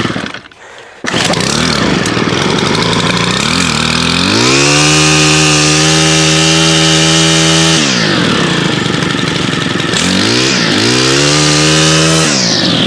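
Stihl FS 110R trimmer's two-stroke engine catching about a second in, after being primed and set on choke in start mode, then revved up to high speed twice, dropping back between; really loud.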